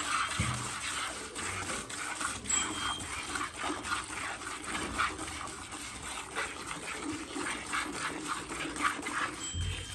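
Hand milking into a steel bucket: rhythmic squirts of milk from the cow's teats hitting the frothy milk in the pail, about two squirts a second.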